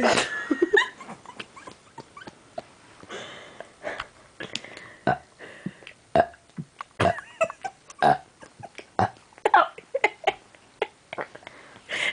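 A person burping many times in quick succession: a string of short, separate burps.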